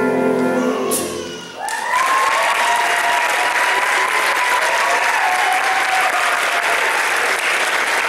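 A jazz big band's final held chord ends with a sharp closing hit about a second in. The audience then breaks into loud, sustained applause with cheering.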